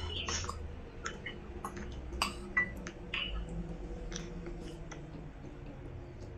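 Someone eating with a spoon and fork from a ceramic plate: scattered clicks and clinks of the cutlery, with chewing. The sharpest click comes about two seconds in.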